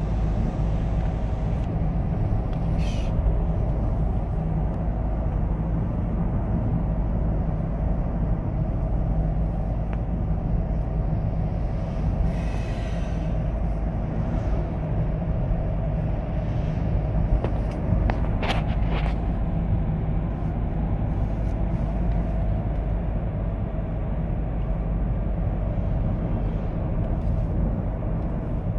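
Steady road and engine rumble heard inside a moving car's cabin, with a few brief clicks or rattles.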